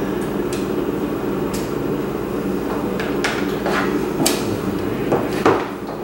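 A utensil scraping and tapping in a disposable aluminium foil pan and against a bowl as food is served, a scattering of short clicks and scrapes that bunch together after about three seconds, the sharpest near the end. A steady hum runs underneath.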